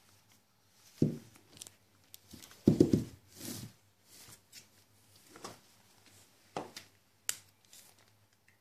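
Scattered knocks, scrapes and rustles of rubber-gloved hands handling a glass jar of soil, its lid and a wooden stick. The loudest knocks come about a second in and near three seconds in, with a sharp click near the end.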